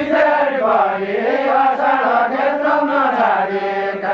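A group of men singing a Deuda folk song together in a chant-like chorus, with long held notes that rise and fall and no instruments.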